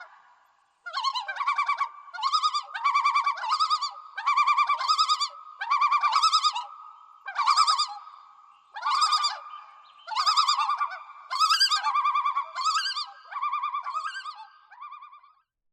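Loon giving its tremolo call: a series of rapid, quavering, laugh-like phrases repeated about once a second, trailing off near the end.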